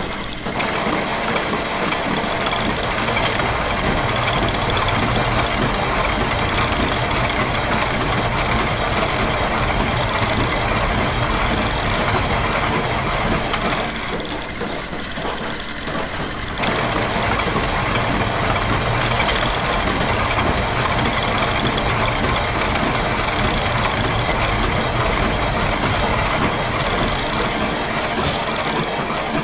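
Dense layered loops of factory machine sounds running continuously: gears, ratchets and other machinery churning together. About halfway through, the higher, hissing layer drops out for two or three seconds, then comes back.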